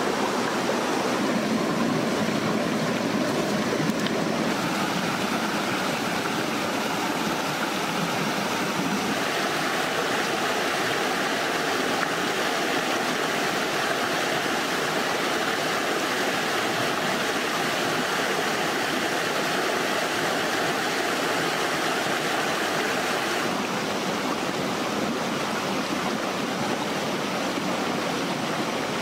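Rushing jungle stream: water pouring over and between rocks in a steady rush, its tone shifting abruptly a few times.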